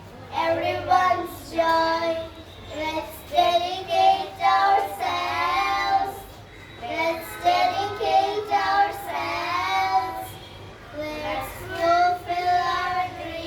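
Child singing a song, with held, wavering notes and short breaths between phrases.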